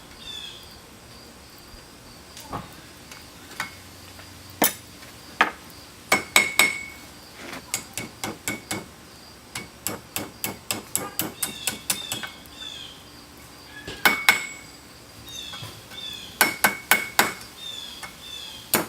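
Blacksmith's hand hammer striking hot steel on an anvil in irregular runs of blows, some louder and ringing, with lighter taps in between.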